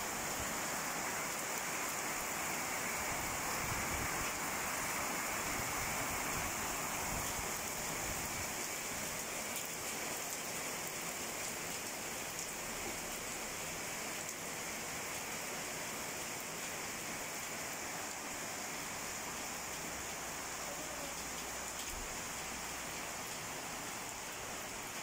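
Heavy rain falling in a steady downpour: an even, continuous hiss of rain.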